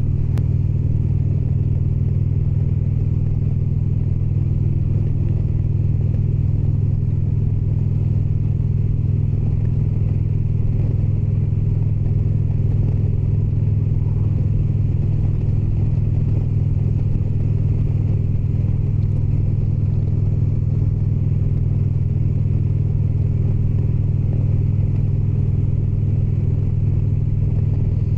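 Indian Springfield motorcycle's V-twin engine running at a steady cruise with road rumble, unchanging throughout.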